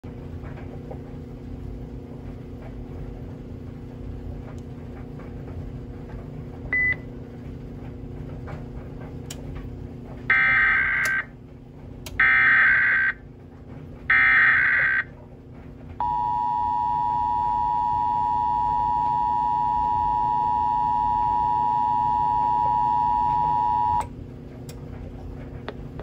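TFT EAS 940A encoder sending an Emergency Alert System Required Monthly Test: a short beep about seven seconds in, then three bursts of SAME header data tones, then the two-tone attention signal held for about eight seconds and cut off sharply. A steady low hum runs underneath.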